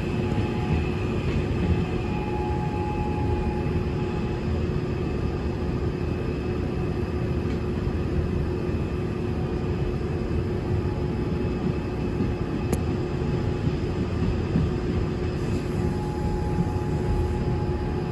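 Gwangju Metro Line 1 electric train running between stations, heard inside the passenger car: a steady low wheel-and-rail noise with a constant hum and a higher whine that fades in and out, heard near the start and again near the end.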